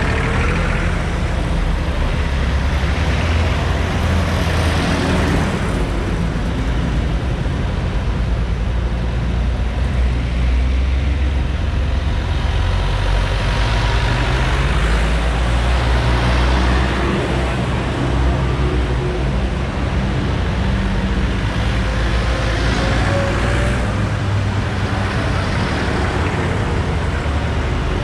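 Vintage Massey Ferguson tractors driving past one after another, their engines running steady and low, louder each time one passes close.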